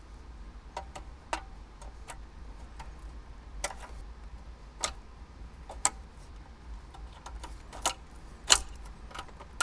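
Irregular sharp plastic clicks and taps as a small flathead screwdriver presses the locking tabs of wiring connectors and the plugs are pulled from the back of a factory Toyota 4Runner head unit. About eight clicks, the loudest one near the end, over a low steady hum.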